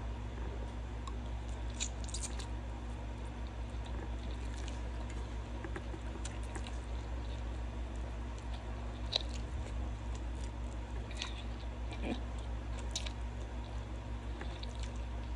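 Mouth sounds of eating spicy noodles: noodles drawn into the mouth and chewed, with scattered short wet smacks and clicks, over a steady low hum.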